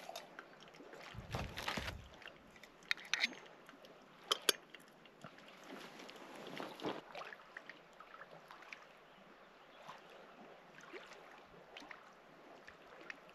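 Quiet camp handling noises over faint water sounds: a brief low rumble about a second in, then a few sharp clicks and knocks.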